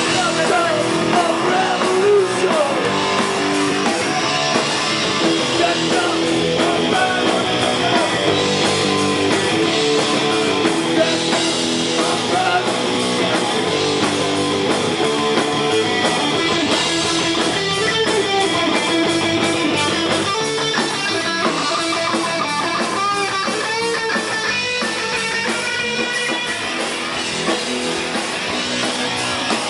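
Rock band playing live, with guitar to the fore over a full, steady band sound.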